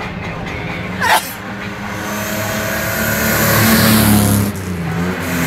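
Car engine revving hard as a racing car accelerates down the street and passes close by, growing louder to a peak about four seconds in, then dropping off suddenly. A brief sharp sound cuts in about a second in.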